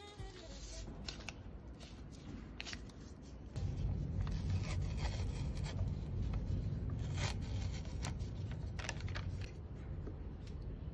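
Paper being torn and peeled off a hardened candle-wax cup by hand: rubbing and rustling with scattered small clicks, louder from about a third of the way in.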